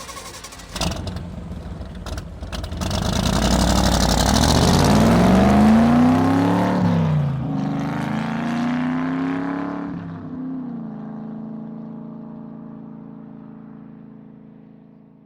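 Racing car engine accelerating hard: its pitch climbs, drops sharply about seven seconds in, climbs again, then settles to a steady tone that fades away.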